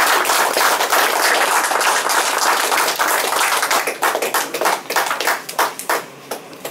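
A room of guests applauding, the clapping thinning to a few scattered claps over the last couple of seconds and dying away near the end.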